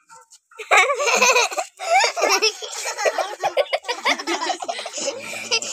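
People laughing heartily, starting about half a second in.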